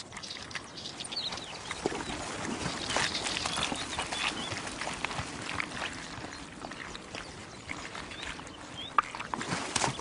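Wild boars and their piglets moving through shallow water and mud: scattered splashing and rooting noises with a few short high squeaks, a little busier a couple of seconds in, and a sharp click near the end.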